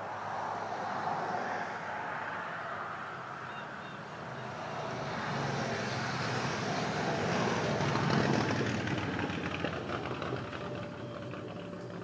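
A motorcycle passing by on the road, its engine growing louder to a peak about eight seconds in, then fading away.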